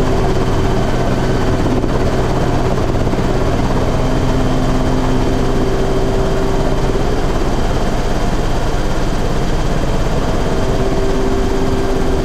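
Small single-seat ultralight helicopter running on the ground, its engine and turning rotor making a steady, loud drone with a few held tones that shift slightly in pitch.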